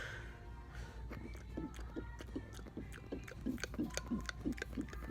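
Faint background music with a regular beat of low notes, about three a second, and scattered light clicks.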